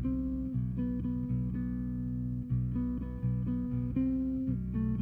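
Background music led by guitar, chords struck in a steady rhythm.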